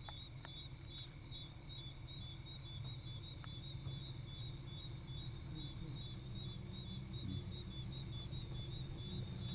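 Insects chirping in a steady rhythm, a few chirps a second, over a low steady hum.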